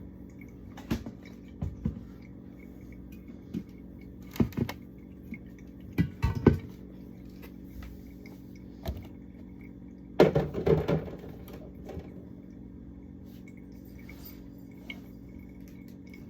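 Containers and jars being handled while a refrigerator is cleared out: scattered knocks and clatters as items are lifted and set down, with a busier burst of clatter about ten seconds in, over a steady low hum.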